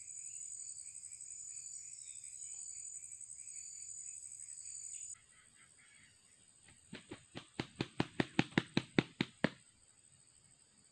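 A rooster flapping its wings: a quick run of about a dozen claps that grows louder and faster over two to three seconds, the wing-beat a rooster gives just before it crows. Before that, a steady high insect chorus pulses and then cuts off.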